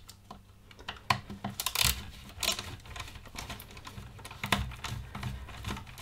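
Irregular small clicks and taps of a Torx screwdriver working tiny screws out of the plastic housing of a Dyson V11 cordless vacuum, with plastic handling knocks.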